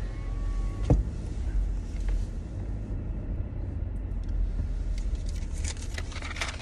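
Low, steady rumble of a car heard from inside the cabin, with a single thump about a second in and some clicking and rustling near the end.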